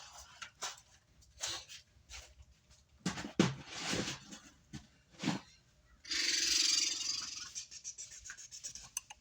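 Workbench handling noises: scattered light clicks and rustles of small parts and bags being moved, then a steady hiss lasting about a second and a half, about six seconds in.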